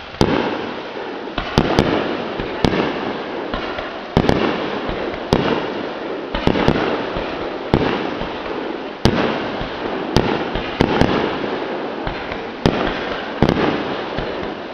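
Fireworks bursting overhead in quick succession: sharp bangs roughly once a second, some in close pairs, with crackling and echoing rumble filling the gaps between them.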